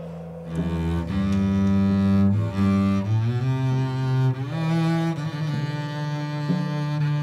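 Double bass played with the bow, holding long low notes and sliding from one pitch to the next.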